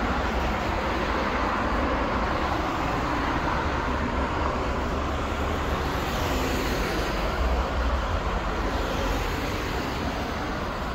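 Steady city street traffic noise: the even rumble and hiss of cars passing on a road.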